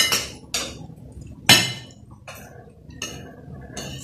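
Metal spoons and forks clinking and scraping on glass plates: a run of sharp clinks, the loudest about a second and a half in.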